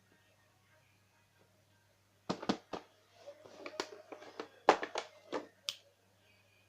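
A quick series of sharp clicks and knocks with rustling between them, starting a little over two seconds in and lasting about three and a half seconds: hard plastic or metal parts and packaging being handled while unboxing a shotgun. A faint steady hum lies underneath.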